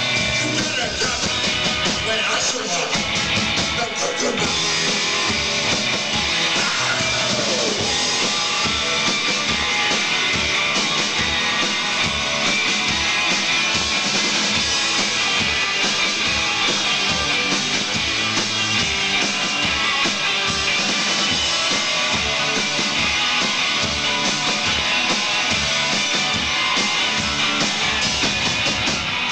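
Live rock band playing a song at full volume, with a drum kit keeping a steady beat under electric guitars.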